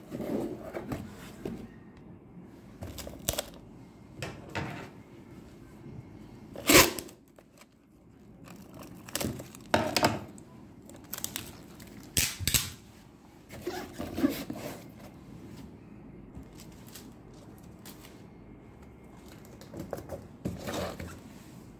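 A small corrugated cardboard box being closed, taped shut and labelled by hand: irregular rustles, scrapes and knocks of cardboard and packing tape, with the sharpest knock about seven seconds in.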